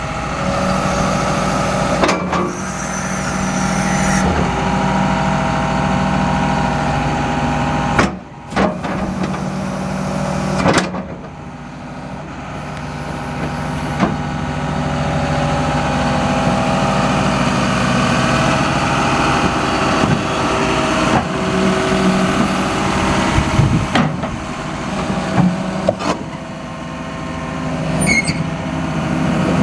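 John Deere 210G LC excavator's diesel engine running, its note dropping and building back up a couple of times, with occasional sharp knocks and a short hiss.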